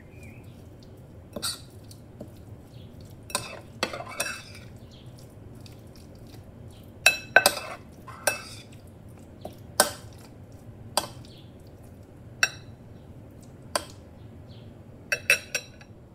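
Metal spoon clinking against a glass mixing bowl while stirring liver pieces in their spice marinade: about a dozen irregular knocks, some of them ringing briefly, the loudest a quick pair about seven seconds in and another pair near the end.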